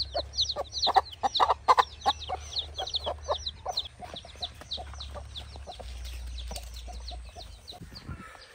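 A hen clucking while her chicks peep: quick high, falling cheeps, about five or six a second, over short low clucks. The peeping thins out and fades near the end.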